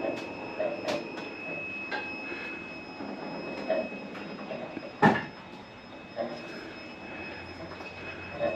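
Car lift lowering a car: a steady high-pitched whine with scattered clicks and knocks, and one loud clunk about five seconds in.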